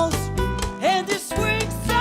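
Latin music played by a small band: a steady bass and guitar accompaniment under a gliding sung melody.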